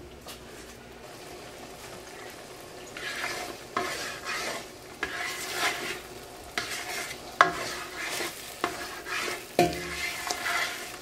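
Spatula stirring and scraping eggs as they set in a nonstick pot of reduced onion-and-chicken broth, the mixture sizzling. The stirring strokes start about three seconds in, with an occasional sharp knock of the spatula against the pot.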